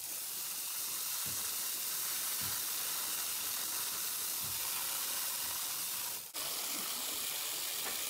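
Water jetting from a hose onto a wet pebble-finish pool floor, a steady hiss of spray. It breaks off for a moment about six seconds in, then goes on the same.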